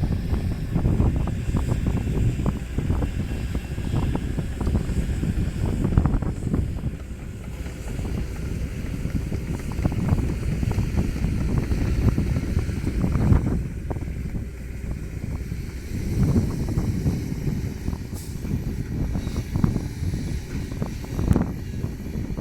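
Heavy diesel engine running, with wind buffeting the microphone in irregular gusts.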